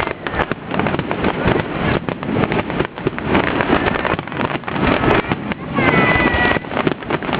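Fireworks crackling densely in rapid, continuous bursts, with voices of onlookers.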